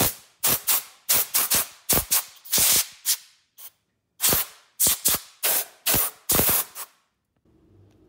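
Compressed-air blow gun firing short blasts of air into a burnt-out fuse socket, blowing out leftover fuse fragments: a rapid series of about fifteen hissing bursts, two of them held a little longer, stopping about seven seconds in.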